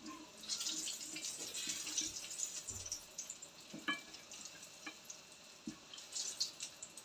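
Potato and tuna balls sizzling and crackling in a pan of hot oil as they are lowered in. There is a burst of crackling about half a second in and another near the end, with a few light clicks in between.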